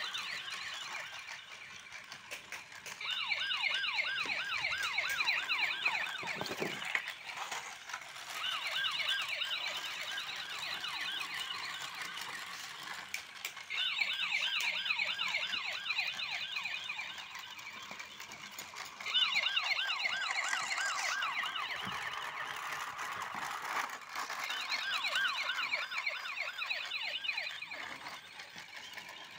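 Battery-powered toy police car playing its electronic siren, a fast warbling wail that comes in stretches of several seconds with short lulls between them, as the car drives itself around.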